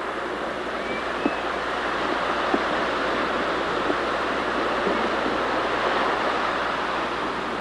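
Steady wash of ocean surf, swelling a little past the middle, with a faint tick about every second and a half.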